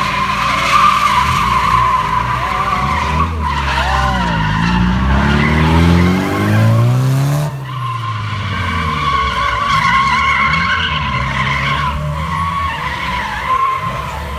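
A car drifting: its tyres squeal continuously while the engine revs rise and fall, climbing through the middle and dropping away sharply about halfway through.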